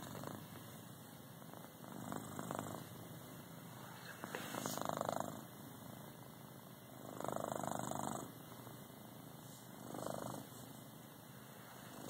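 Domestic cat snoring in its sleep: a rough, rasping breath sound that swells on each breath, five swells about every two and a half seconds.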